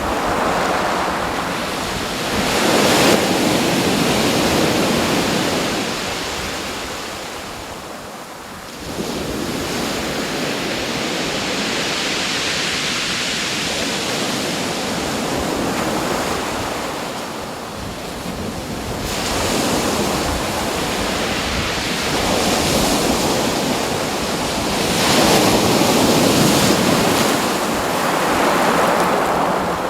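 Ocean surf: a wash of wave noise that swells and eases every several seconds, with a clear lull about eight seconds in.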